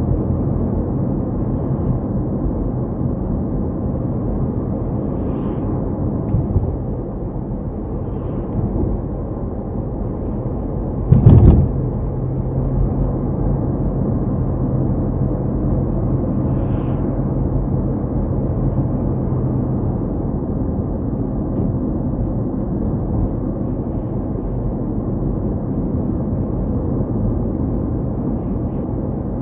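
A car driving along a road, with a steady low rumble of engine and tyre noise. About eleven seconds in there is one loud thump, followed by a steady low engine hum for several seconds.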